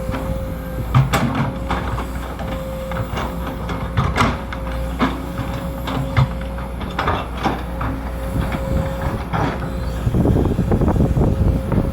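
Sumitomo SH210 excavator digging a ditch: its diesel engine runs steadily under a constant hum, with irregular clanks and knocks from the digging. It gets louder near the end.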